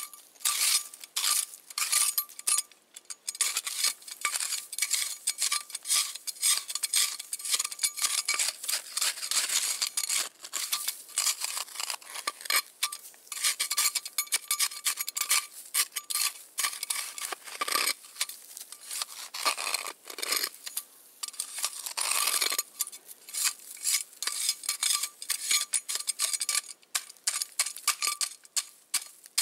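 A small metal hand tool scraping and chipping at packed snow against a buried wooden board in rapid, repeated strokes, with short pauses between bursts.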